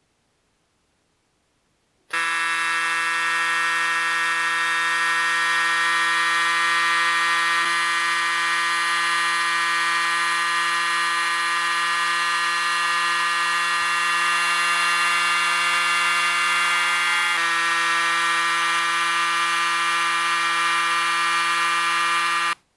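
Sandblasting cabinet's blast gun firing abrasive at a worn, pitted steel chisel: a loud, steady buzzing hum with a hiss over it. It starts suddenly about two seconds in and cuts off suddenly just before the end.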